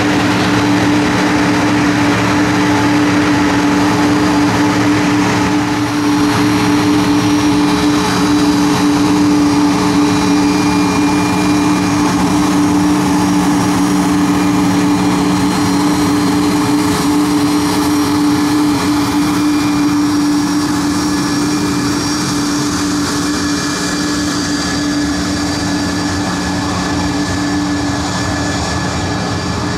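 CC-295 Kingfisher (Airbus C-295) twin turboprops, Pratt & Whitney PW127G engines with six-bladed propellers, running as the aircraft makes its takeoff roll and climbs away: a loud, steady propeller drone with a strong low hum. The sound eases off over roughly the last third as the aircraft climbs out.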